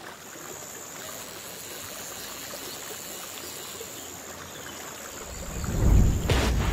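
Intro sound effect: a steady hiss with a thin high tone, then a deep rumble that swells from about five seconds in and peaks with a short whoosh near the end.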